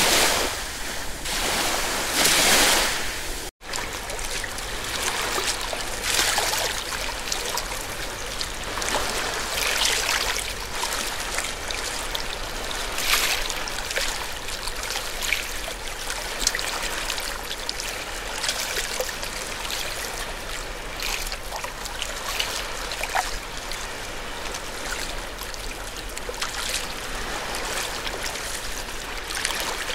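Sea waves surging for the first few seconds, then a sudden break about three and a half seconds in. After it, water splashes and trickles steadily, with many small irregular splashes, like water lapping and draining among rocks.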